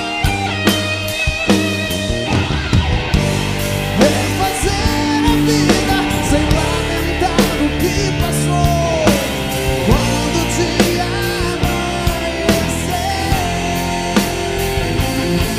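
Live rock band playing an instrumental break: an electric guitar solo with bending, sliding notes over a steady drum beat.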